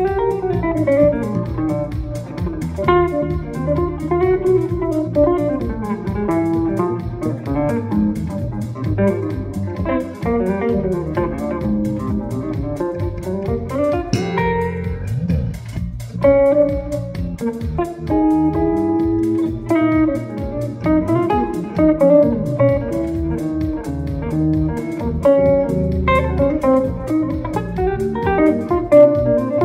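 An ELYRA electric guitar and an EYB Bassiq 5 electric bass playing an instrumental duet, the bass holding low notes under the guitar's changing melodic lines.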